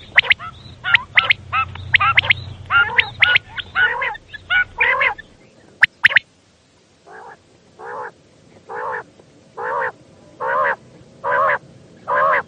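Quails calling. First comes a rapid jumble of sharp, overlapping calls. After a short break a single bird settles into a steady series of short, wavering calls, about one a second.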